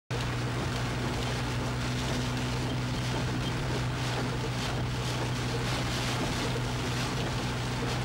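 Typhoon Gay's storm wind and driving rain, a steady rushing noise that swells in gusts, heard from inside a vehicle with a steady low hum underneath.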